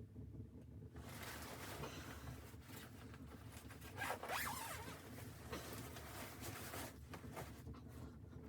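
A zipper being drawn, a rasping run of several seconds that is loudest about midway and stops shortly before the end.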